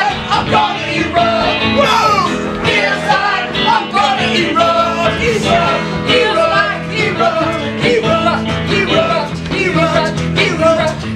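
Live music: the improvised song continues, with keyboard accompaniment under several voices singing, no words clearly made out.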